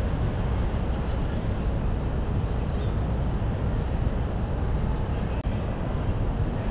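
Steady low outdoor rumble with no distinct events, and a single faint click about five and a half seconds in.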